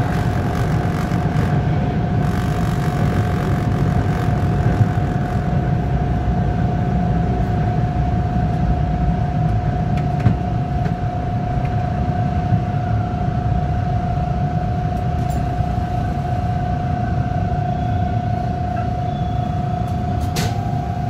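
TTC Bombardier T1 subway train running through a tunnel and slowing into a station: a steady rumble of wheels on rail with a constant high whine, easing slightly in the second half as the train comes to a stop.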